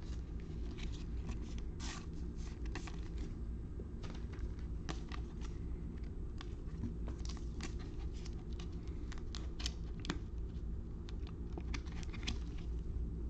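Trading cards being handled and sorted by hand: scattered light clicks and slides of card stock over a steady low hum.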